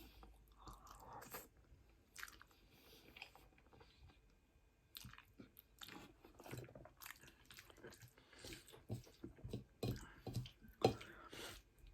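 Faint, close-miked chewing and biting of spaghetti bolognese and garlic bread: short mouth clicks and smacks, sparse at first and coming more often from about five seconds in.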